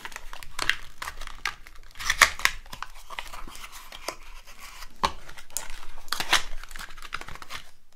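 Long acrylic nails clicking and scratching on a small cardboard box as its flaps are pried open, with the cardboard rustling and tearing. Irregular sharp clicks throughout, the loudest about two seconds in.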